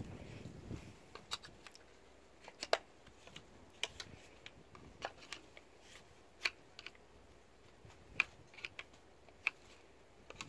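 Irregular sharp plastic clicks and taps, about a dozen spread out, as a diesel fuel filter housing and its fuel heater are handled and levered together with a screwdriver.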